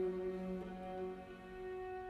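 Background music of slow, long-held bowed string notes.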